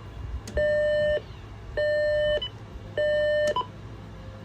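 Telephone giving three identical electronic beeps, each a little over half a second long and about 1.2 seconds apart.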